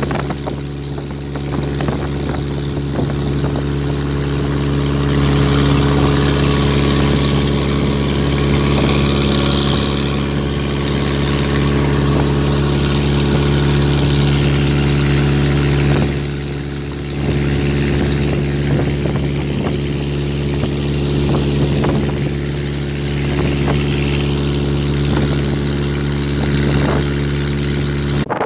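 A riverboat's engine running steadily under way, an even drone, with water rushing past the hull. The engine eases off for about a second near the middle, then picks back up.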